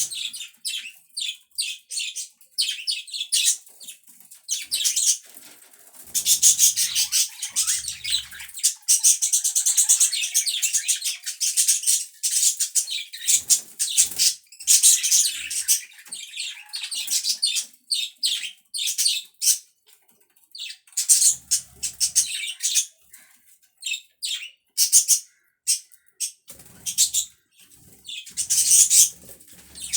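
Budgerigars chattering: rapid high chirps and warbling, with denser warbling stretches about a third and half of the way through. A few short low thumps sound between them.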